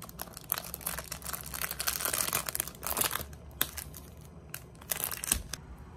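Clear plastic wrapper of a packaged sandwich crinkling and tearing as it is unwrapped by hand: a dense stretch of crackling for about the first three seconds, then a few separate crinkles near the end.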